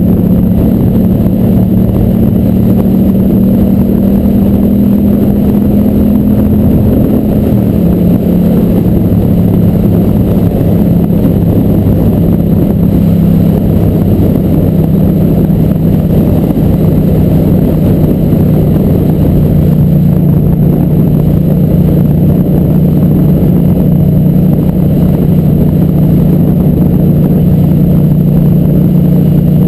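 Racing motorcycle engine running hard at steady speed. Its note drops about eight seconds in, eases a little lower again later, then holds steady.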